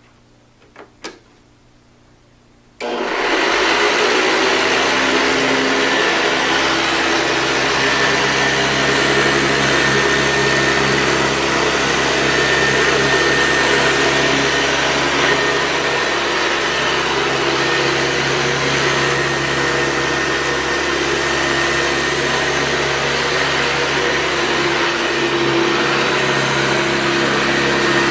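Two small clicks, then a Hoover Convertible U4193 upright vacuum cleaner switched on about three seconds in, its motor coming straight up to speed and running steadily with a loud rushing sound and a faint steady whine.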